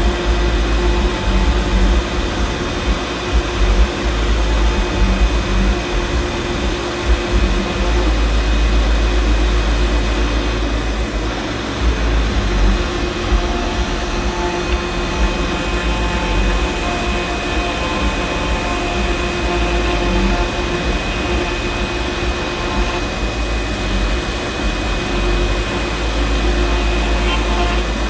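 Fox Alien 4040 CNC router running: the 300-watt spindle motor's steady whine, with shorter tones that start, stop and change pitch as the axes move, over a loud uneven low rumble.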